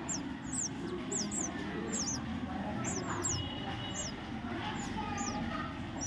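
Common myna (shalikh) nestlings begging with thin, high, short chirps that fall in pitch, repeated steadily about twice a second and often in pairs.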